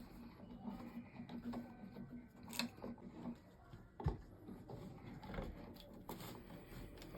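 Faint clicks and knocks of dashboard switch-panel parts being handled and worked loose, with one sharper knock about four seconds in.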